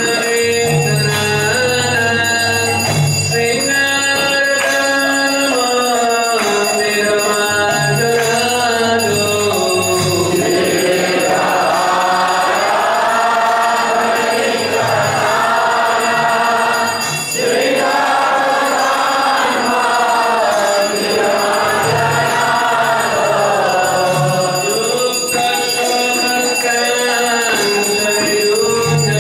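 Devotional kirtan at temple arati: a lead singer, then a group of voices singing the response from about ten seconds in until near the end, over jingling hand cymbals and a steady ringing tone.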